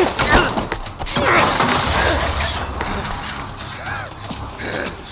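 Fight-scene impacts: blows and body thuds with short cries, and heavy chains clanking and ringing as they swing.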